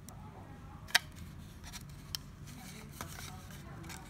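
Light handling noises of printer parts on a workbench: one sharp click about a second in, then fainter knocks near two and three seconds, over a steady low hum.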